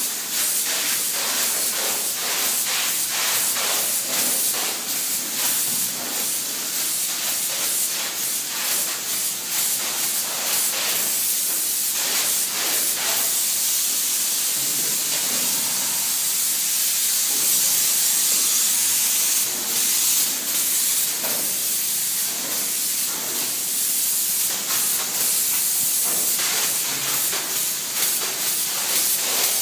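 Spray polyurethane foam gun spraying foam insulation: a steady, loud high hiss of the foam jet, flickering with many short spurts.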